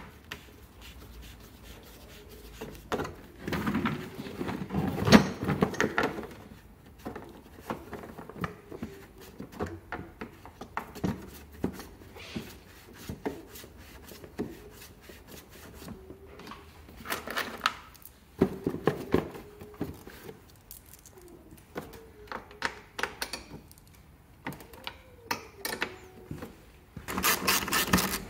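Hands handling and fitting the plastic body parts of a scooter: scattered clicks, knocks and rubbing of plastic. Near the end comes a fast, even run of clicks as a screw in the seat compartment is tightened.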